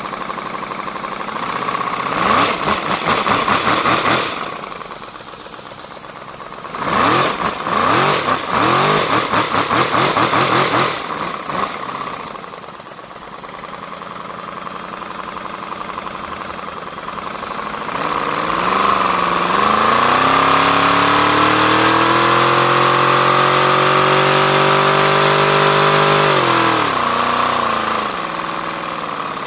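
3D-printed V4 compressed-air engine running on air from a compressor, with a steady hiss. It speeds up in two short surges, then runs up to a high speed that it holds for several seconds before slowing near the end.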